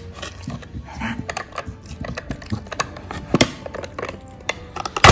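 Irregular plastic clicks, taps and scrapes from a Trixie Dog Activity Flip Board puzzle feeder as a dog paws and noses at its sliding covers, with a sharper click about three and a half seconds in and another at the very end.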